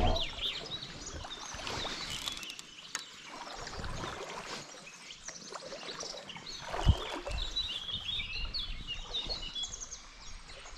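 Small birds chirping and singing over a low outdoor rumble of wind and moving water, with a few knocks, the loudest about seven seconds in.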